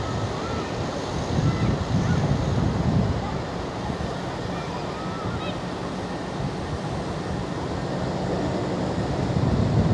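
Surf washing on a sandy beach, swelling and easing, with wind buffeting the microphone.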